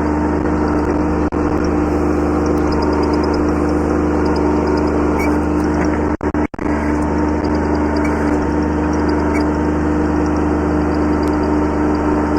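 Kubota B7100 tractor's small three-cylinder diesel engine running steadily at a constant speed. The sound drops out briefly twice a little past the middle.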